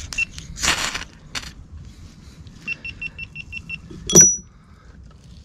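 Ferro rod struck with a steel striker over a pile of pine shavings to light a fire: a few quick scraping strokes in the first second and a half, then one sharp, loud strike a little after four seconds in. Between them comes a quick run of about seven short high electronic beeps.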